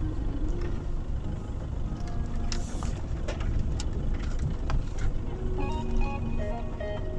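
In-cab rumble of a Toyota Hilux pickup driving slowly over a rough dirt track, with short knocks and rattles as it bumps along. Background music comes in near the end.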